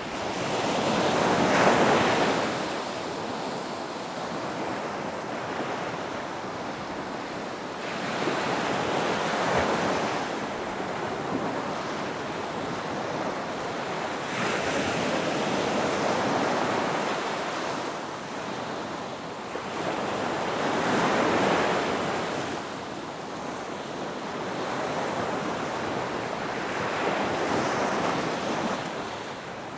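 Ocean surf: waves breaking on a beach one after another, each swelling up and washing back roughly every six seconds, the strongest about two seconds in.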